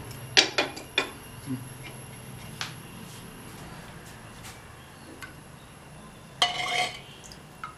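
Steel ladle and cookware clinking against an aluminium pressure cooker and a stainless steel bowl while cooked dal water is ladled out. A few sharp clinks come in the first second and single knocks follow; near the end comes a louder ringing metal clatter.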